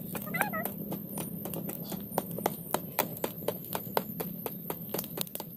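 Wooden pestle pounding in a clay mortar: repeated sharp knocks, about three to four a second, with a brief child's voice about half a second in.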